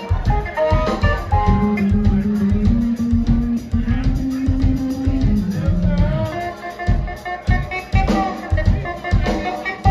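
Live band playing: electric bass, electric guitar and drum kit, with a long note held from about a second and a half in to about five seconds.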